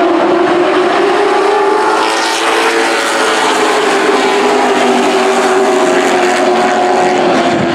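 A field of super trucks racing on a short oval, several engines sounding together at speed, their pitches drifting slowly up and down as the pack goes through the turn.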